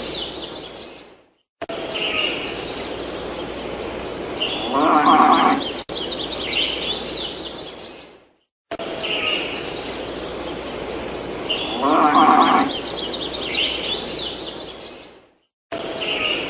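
Looped farm-ambience sound effect: birds chirping, with a cow mooing once in each pass of the loop. The loop plays twice, each time breaking off in a brief dropout before it restarts.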